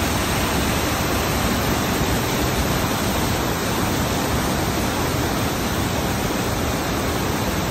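Fast white water rushing steadily down a mill race channel, a constant even rush with no breaks.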